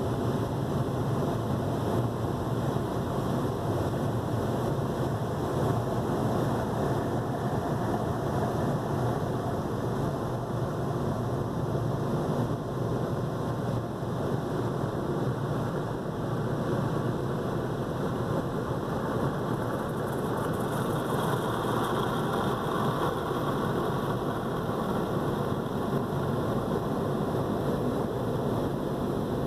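Steady low mechanical rumble with a rushing noise over it, heard from inside a stationary car at the exit of an automatic car wash; the rush grows a little brighter about 20 seconds in.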